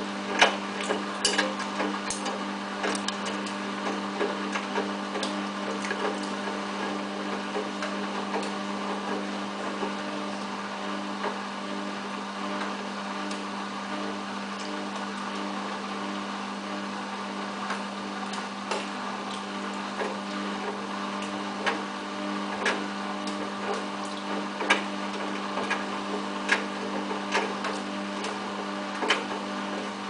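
Samsung WF8804RPA washing machine's motor humming steadily as the drum turns slowly, trying to balance a single unbalanced item for the inter spin. Over the hum are scattered sharp clicks and light knocks, more of them in the first few seconds and again in the last ten.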